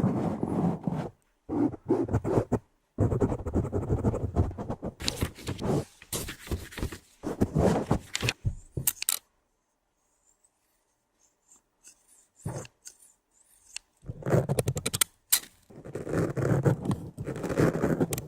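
ASMR trigger sounds made right at a microphone: fast, rough scraping and rubbing with sharp clicks and clatters. They stop for about five seconds in the middle and then start again. The handling is heavy and harsh rather than gentle.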